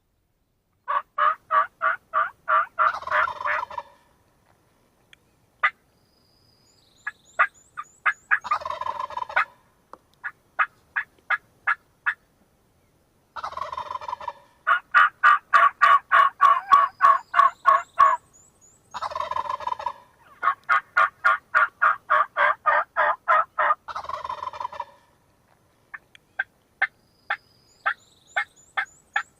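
Wild turkey gobbles, each about a second long and coming roughly every five seconds, between runs of fast, evenly spaced yelping notes.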